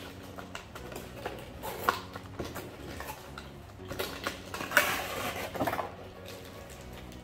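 A cardboard figure box is handled and its end flap pulled open: scattered knocks and taps of cardboard, then a louder stretch of scraping and rustling near the middle.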